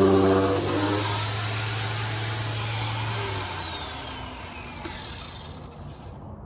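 Electric sander's motor switched off and spinning down: its steady hum drops away in the first seconds and the high whine glides down in pitch as it coasts to a stop.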